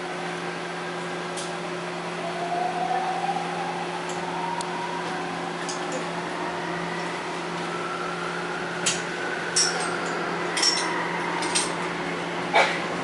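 Seoul Metro Line 5 subway car running, heard from inside: a steady electrical hum with a motor whine that rises in pitch a couple of seconds in and swells and fades again later. In the second half come sharp clicks about once a second.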